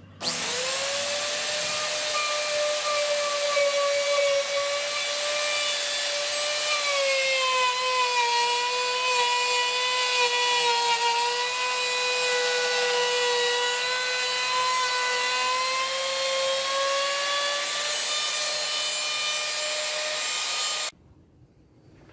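Wood-carving machine's spindle cutting wood: a loud, steady high whine over a hiss, its pitch sagging a little in the middle and climbing back. It cuts off suddenly near the end.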